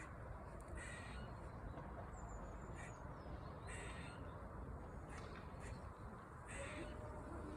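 A squirrel calling loudly: three harsh, raspy calls, each about half a second long and roughly three seconds apart.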